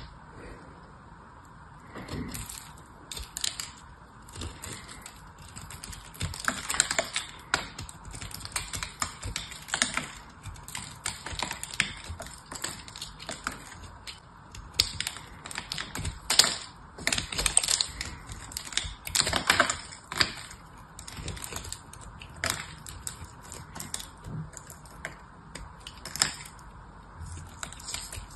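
Small knife cutting and scraping into a silver-coated bar of dry hard soap: quick, irregular crackly scrapes and clicks in short runs with brief pauses.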